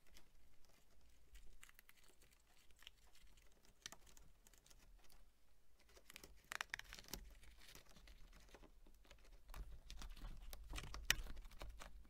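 Faint rustling and crinkling as a taped bundle of harness wires is handled and fed through a rubber grommet boot, with scattered light clicks and one sharper click about eleven seconds in.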